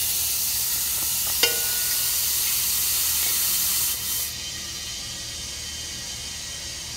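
Propane hissing through the valve and fittings as liquid propane is transferred into a 40 lb cylinder. There is a single sharp click about a second and a half in, and the hiss drops to a quieter level about four seconds in.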